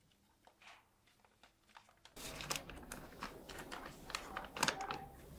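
Paper rustling and crinkling as a folded note is unfolded and handled: a string of short, sharp crackles starting about two seconds in, after a nearly silent start.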